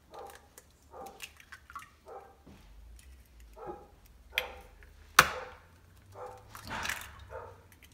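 Eggs being cracked into an empty stainless steel mixer bowl. About five seconds in, a shell hits the bowl's rim with one sharp crack, and there are softer clicks of shell around it.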